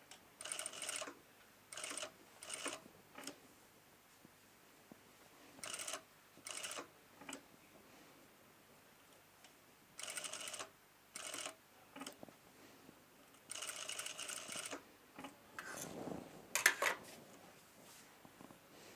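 Sewing machine stitching in short bursts of under a second to about a second, stopping and starting again and again as the fabric is guided along a curve. Near the end come a couple of louder knocks of a different kind.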